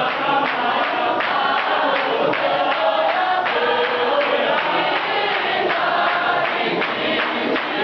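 A large clap-and-tap gospel choir singing together in chorus, many voices at once.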